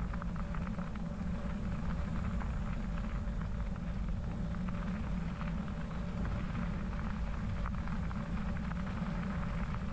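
Bicycle tyres rolling over a wet crushed-limestone trail: a steady low rumble with a fine crackle of grit.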